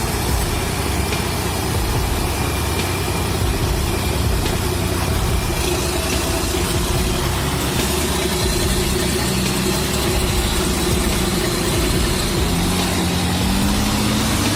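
Heavy vehicle engine running steadily over a noisy rumble, its pitch climbing as it revs up near the end.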